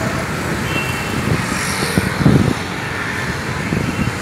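Road traffic going past: a steady wash of engine and tyre noise, with a louder swell about two seconds in.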